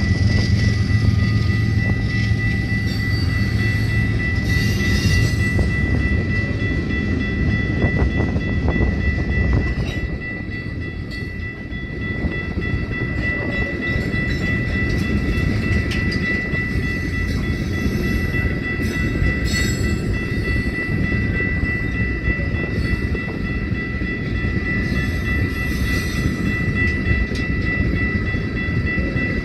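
Union Pacific freight train of rock hopper cars rolling past a grade crossing, the wheels clattering over the rails, with a diesel locomotive's engine running low in the first few seconds. The crossing's warning bell rings steadily over the train noise.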